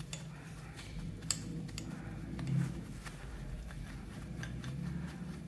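Light metallic clicks and taps of a combination wrench working a coarse-threaded steel cylinder-head stud loose, over a low steady hum.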